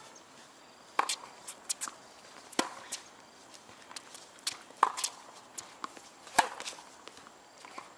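Tennis ball struck back and forth by rackets in a rally on a hard court: four sharp pops, one and a half to two seconds apart, with lighter knocks between.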